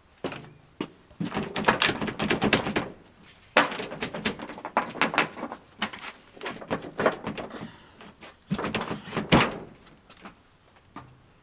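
A door being rattled and shoved: clattering knocks and rattles of the door and its handle in three bursts, the last ending in a sharp knock, then it goes quiet.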